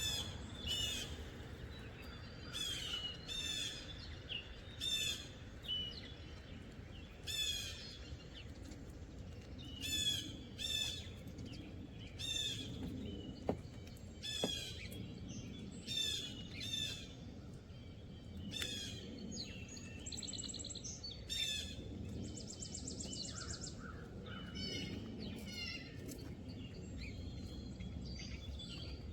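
Songbirds singing and calling, with short high notes sliding downward and repeating every second or two. A buzzy trill comes in about twenty seconds in.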